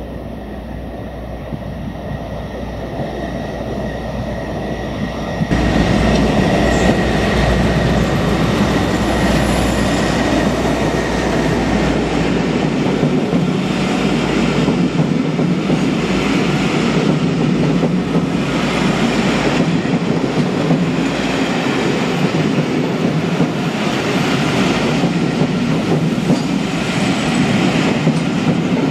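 Class 57 diesel locomotive hauling a train of coaches, growing louder as it approaches. About five seconds in the noise jumps up as the coaches roll past close by, their wheels clicking over the rail joints in a regular rhythm.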